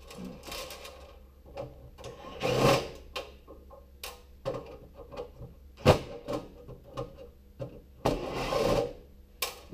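Power driver with a Phillips bit running in two short bursts, backing screws out of a gas stove's sheet-metal panels, amid scattered clicks and metal clatter, with one sharp knock about six seconds in.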